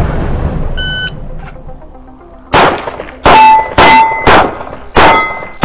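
A shot timer's short start beep about a second in, then five fast 9mm pistol shots from a Canik SFX Rival at steel targets, about half a second apart, with a sixth shot right at the end. Most of the shots are followed by the ring of a struck steel plate.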